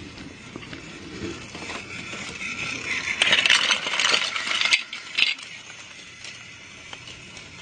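Toy trains clattering and rattling on plastic track, building to a loud clatter of many small clicks and knocks about three seconds in that cuts off suddenly, followed by one last clack: the trains crashing off the track.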